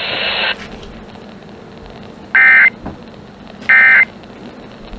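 NOAA Weather Radio EAS/SAME digital data bursts: three short, identical screeching tone bursts about a second apart, the third just starting at the end, over faint radio hiss. They are the End Of Message (NNNN) code that closes the flash flood warning just read.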